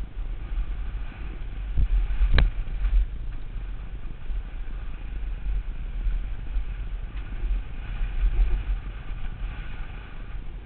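Mountain bike descending a dirt singletrack, heard through a helmet camera: a steady low rumble of wind buffeting and the bike rolling over the rough trail, with one sharp clack about two and a half seconds in.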